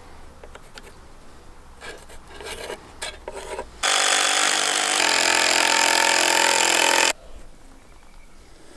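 Impact driver driving a screw into timber framing, starting suddenly about four seconds in, running steadily for about three seconds, then cutting off sharply. Before it, light scraping and knocking of wood being handled.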